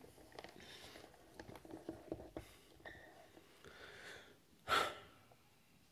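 Faint room sounds with small rustles, and a short, sharp intake of breath close to the microphone about five seconds in.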